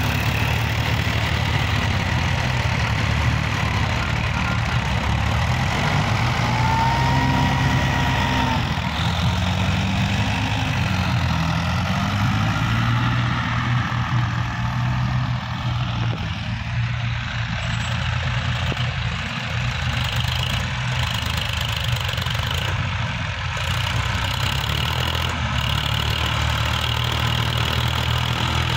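Tractor diesel engines running steadily as the tractors drag rear leveling blades through loose sand, with a brief rise and fall in engine pitch about seven seconds in.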